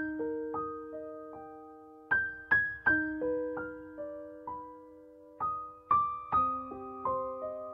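Background music: a slow, gentle keyboard melody of single struck notes that ring and fade, roughly one or two a second.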